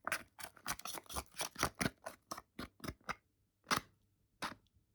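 Quick utensil strokes as natto is worked into a bowl: about five sharp clicks a second for three seconds, then a few single knocks.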